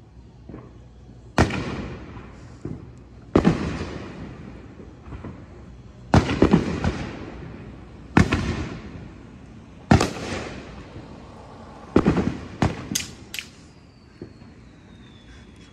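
Neighborhood fireworks: aerial shells bursting one after another with loud booms that echo and roll away, about one every two seconds, then a quick run of three sharper bangs. Near the end a thin whistle slides slowly downward.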